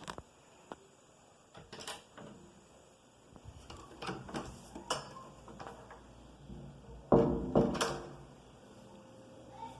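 Refrigerator door and its contents being handled: scattered knocks and clicks, with the loudest clatter about seven seconds in.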